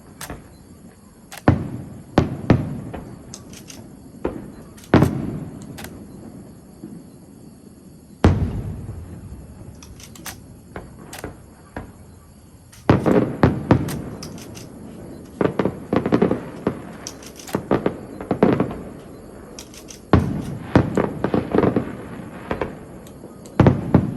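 Fireworks going off in irregular volleys: sharp bangs, each with a booming, echoing tail. They come singly at first, then in rapid clusters of several bursts about halfway through and near the end.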